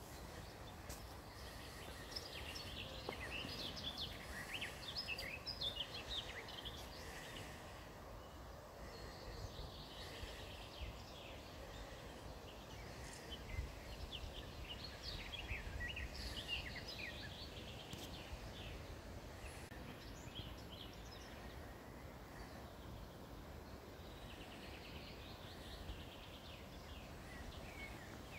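Songbird singing outdoors in several short phrases of rapid high chirps, a few seconds apart, over a steady low rumble.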